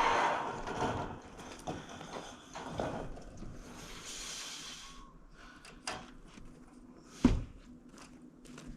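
Scattered knocks and taps from roof work, the loudest a single sharp knock about seven seconds in, after a rushing noise that fades away during the first second.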